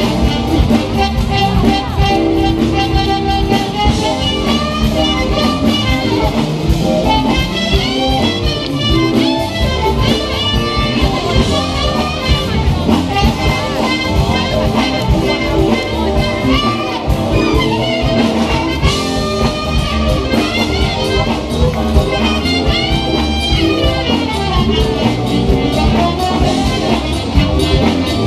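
A live band playing music, with a bending melodic lead line over dense accompaniment and a busy low end.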